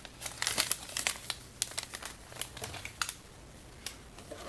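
Foil blind-bag toy packet crinkling as it is handled, in irregular crackles that are busiest in the first three seconds and thin out near the end.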